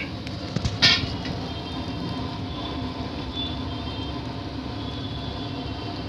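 Steady rumbling background noise of a commercial kitchen, with one sharp clink about a second in.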